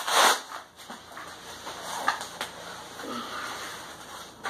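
A nylon plate carrier with knife sheaths on it being taken off: a short burst of rough noise at the start, then fabric rustling with a few light knocks of gear.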